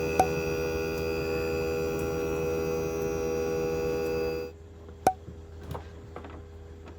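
Air conditioner running with a steady electrical hum that cuts off suddenly about four and a half seconds in. A sharp click comes near the start and another just after the hum stops, followed by a few faint knocks.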